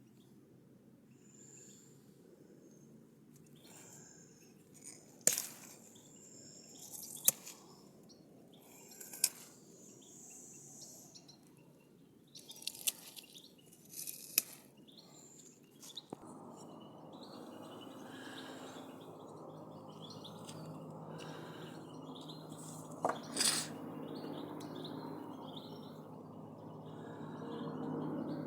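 European goldfinch giving short, high chirps now and then, with a few sharp clicks. A low, steady hum comes in about halfway and grows louder toward the end.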